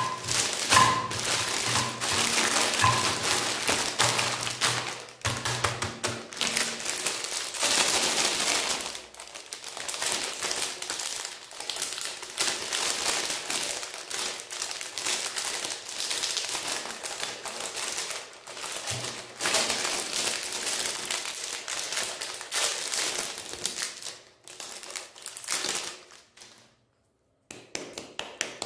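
Ice cream bar wrappers crinkling and tearing as hands handle them and peel them open, a dense crackle of many small clicks that thins out near the end.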